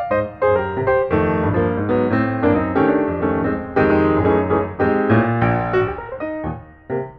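Background piano music, a run of struck notes that thins out and grows quieter near the end before the notes pick up again.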